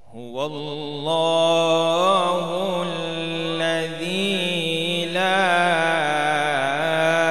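A male qari chanting Quran recitation in a slow melodic style. A single amplified voice begins right after a pause and sustains one long phrase with ornamented rises and falls in pitch.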